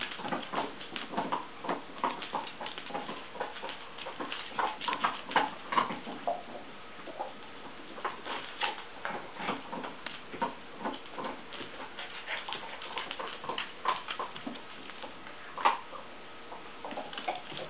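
A miniature pinscher mix puppy's claws clicking on a tile floor as it scampers and plays with a toy, an irregular patter of quick ticks.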